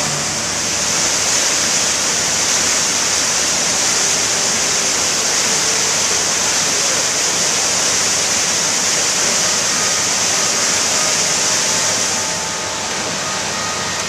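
Rushing white water of river rapids and a small cascade pouring over rocks: a loud, steady hiss that drops a little in level near the end.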